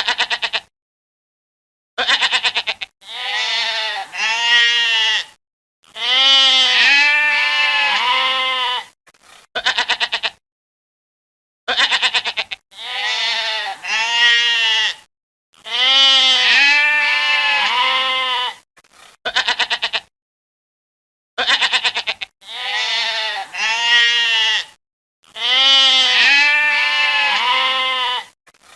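Goat bleating with a quavering, wavering pitch, in an edited sequence that repeats three times. Each round is a short stuttering burst, a shorter bleat, a long wavering bleat and another stuttering burst, with dead-silent gaps between.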